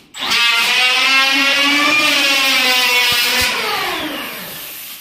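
Handheld electric planer's motor switched on, running free with a steady whine, its pitch sagging and the sound fading as it winds down near the end. Two light knocks come a little past halfway.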